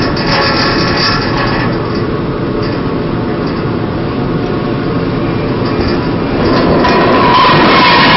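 A steady loud rumble, then from about six and a half seconds a louder grinding with a high squeal near the end, as the 120 mm chain freed from the Karm Fork stopper starts to run over the steel deck.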